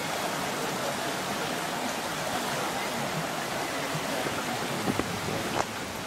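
A shallow creek flowing steadily, a constant rushing noise of running water.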